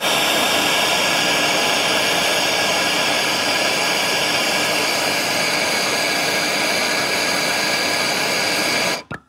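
Gas torch flame hissing steadily while it heats a seized exhaust manifold stud, the heating stage of heat-and-quench stud removal. It stops abruptly near the end.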